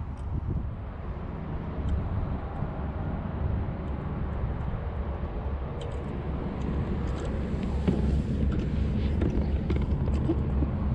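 Wind buffeting the microphone, a steady, uneven low rumble, with a few faint ticks over it.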